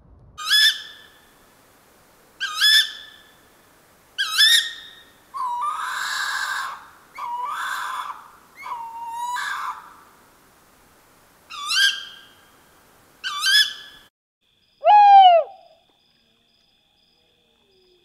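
Recorded tawny owl calls played back. There are five short, sharp calls spread through the first 14 seconds and, in the middle, three longer and harsher calls that each open with an upward flick. About 15 seconds in comes one loud call sliding downward in pitch.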